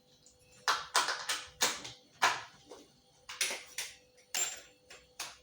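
About ten sharp clicks and knocks of kitchenware being handled, hard objects set down and knocked together at an irregular pace.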